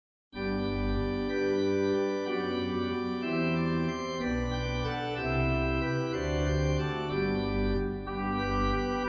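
Pipe organ playing slow sustained chords over a deep pedal bass line that changes note every second or so, starting suddenly after a brief silence at the very start.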